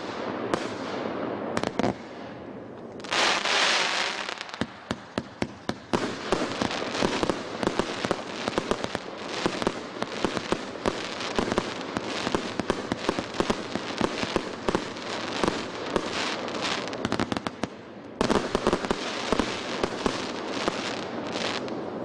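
Multi-shot fireworks battery ('Royal' cake) firing continuously: rapid bangs over dense crackling, with a loud hissing surge about three seconds in and a short lull before a final burst.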